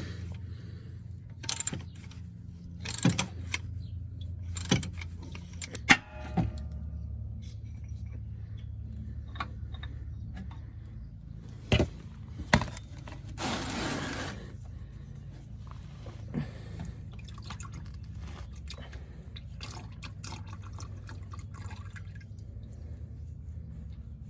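Metal tools and parts clinking and knocking during work on the oil drain plug and oil filter, in a run of sharp clinks over a steady low hum. About thirteen seconds in comes a brief rush of liquid.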